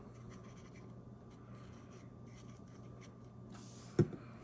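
Small AR-15 lower-receiver parts being handled and lubricated on a bench: faint rubbing and scattered small clicks, then one sharp knock near the end.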